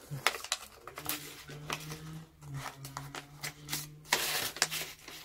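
Paper banknotes and a clear plastic binder pocket being handled: scattered crinkles and clicks, with a longer rustle about four seconds in, over a faint low hum.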